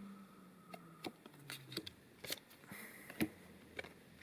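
Trading cards and booster-pack packaging being handled on a table: light, irregular clicks and taps with a brief soft rustle.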